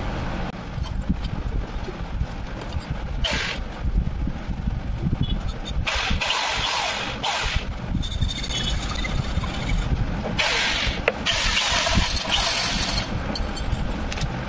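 Electric drill spinning a length of wire inside an EGR pipe, run in several short bursts of a second or two each. The wire scrapes out the heavy carbon deposit built up inside the pipe.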